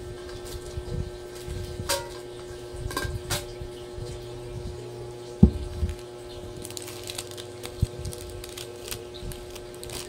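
A large non-stick wok being handled and turned over: a few light clicks and knocks, then one louder thump about halfway through and a smaller one later, over a steady low hum.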